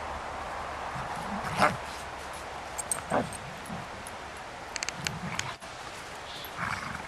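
Labrador retrievers play-fighting, giving a few short barks and yips; the loudest comes about one and a half seconds in, another about three seconds in.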